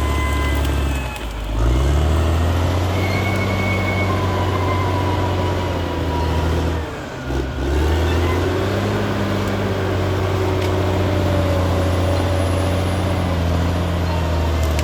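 Caterpillar D6R XL bulldozer's diesel engine running steadily under work. The engine note drops briefly twice, about a second in and again about seven seconds in, and picks back up each time.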